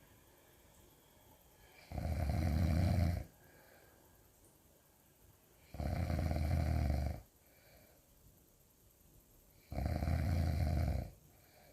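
Really loud snoring: three long snores, one about every four seconds, each lasting just over a second.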